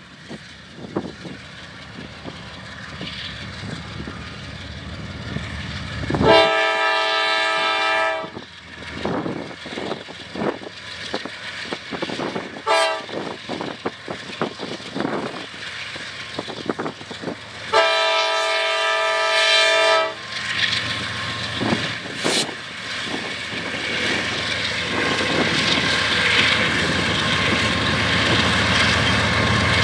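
Norfolk Southern diesel locomotives sounding a multi-chime air horn while approaching a grade crossing: two long blasts about ten seconds apart with a brief toot between them, over the engines working as the train gets under way. The engine and wheel noise grows louder near the end as the locomotives pass close.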